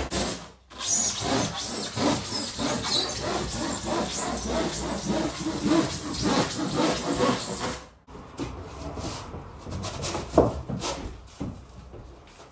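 A saw cutting through a foil-faced Kingspan Therma rigid foam insulation board in quick, steady back-and-forth strokes, stopping about eight seconds in. Then quieter rubbing and a few light knocks as the cut board is pushed into place between timber wall studs.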